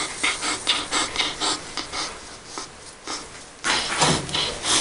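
Gauze scrubbing back and forth over a dog's clipped foreleg in quick scratchy strokes, about four a second, louder near the end: antiseptic skin prep before placing an IV catheter.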